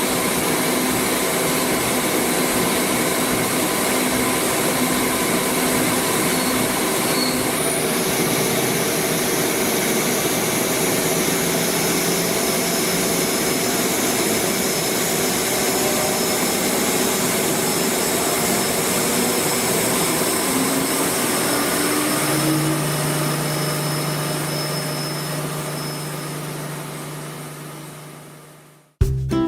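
Large CNC lathe running: a steady machine hiss and hum with a few held tones. A lower hum joins about three-quarters of the way through, then the noise fades away near the end.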